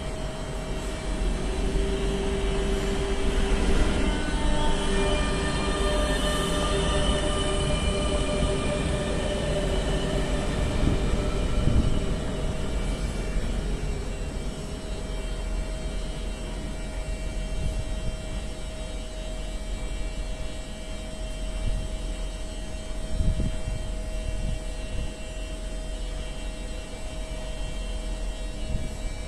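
MS61 RER A electric train pulling slowly into the platform: a steady rumble with several whining tones from the motors and brakes, strongest in the first ten seconds or so, then fading to a steady hum as it slows.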